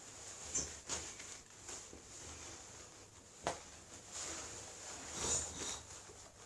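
Clothing and costume pieces rustling as they are handled. There are light scattered clicks, and one sharper click about three and a half seconds in.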